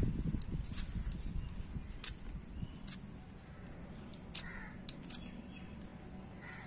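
Small knife scraping and nicking the skin off a freshly dug turmeric rhizome held in the hand: about half a dozen short, sharp scrapes, spread out. A bird calls briefly about four seconds in.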